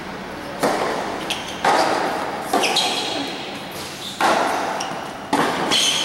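Tennis balls struck by racquets and bouncing on a hard court during a rally: a string of sharp pops roughly a second apart, each ringing briefly under the covered court's roof.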